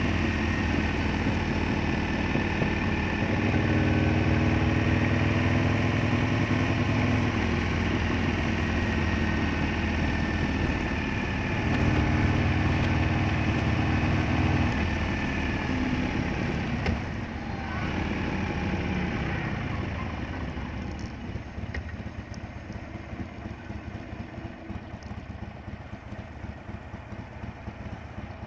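Harley-Davidson Sportster Roadster's V-twin engine running under way with wind rush on the microphone, its pitch rising and falling through the first half. After about twenty seconds it drops back to a quieter, steady idle as the bike comes to a stop.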